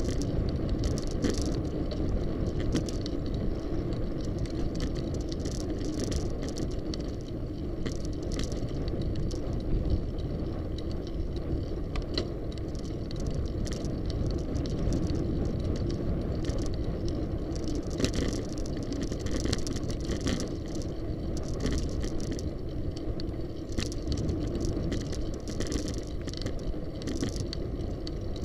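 Riding noise from a bicycle on a city street heard through a bike-mounted action camera: a steady rumble of wind on the microphone and tyres on the road, with frequent small rattles and clicks throughout.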